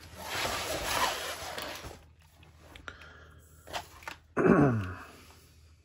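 Rustling and crinkling of a diamond painting canvas under its plastic film as it is turned and smoothed on the desk, for about two seconds. A few faint clicks follow, then a short vocal grunt that falls in pitch.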